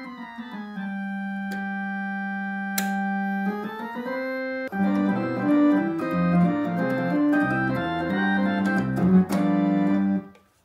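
A 1960s Philips Philicorda electronic organ being played with its G-sharp tone generator freshly repaired. It opens with a chord wavering with vibrato, then holds a steady chord. About halfway through it moves into a busier passage of chords over a moving bass line, which stops abruptly shortly before the end.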